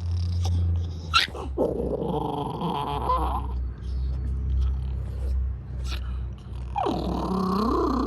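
Chorkie (Chihuahua–Yorkie) dog giving wavering, whiny growls, two long ones of about a second and a half each, with a short sharp yelp-like sound between them.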